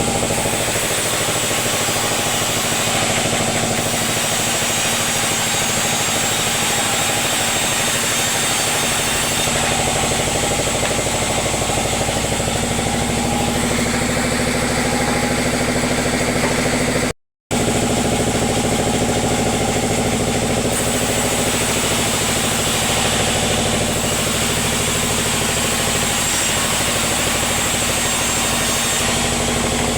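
Sawmill engine running steadily with a dense, unchanging drone. The sound drops out for a moment about 17 seconds in.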